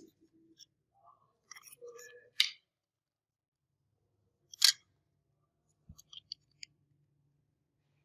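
Small tools and parts being handled on a work surface: a few sharp clicks and taps, the loudest about two and a half and four and a half seconds in, then a quick run of light ticks about six seconds in.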